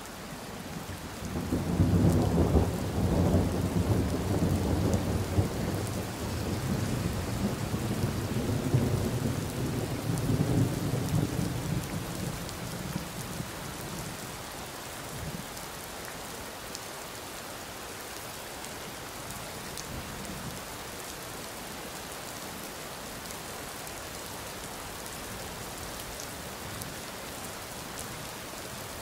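A long roll of thunder that swells about a second in, is loudest over the next few seconds and dies away after about twelve seconds, over a steady hiss of rain.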